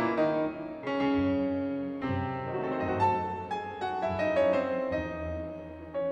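Background piano music: single notes and chords struck and left to ring, a new one every second or so.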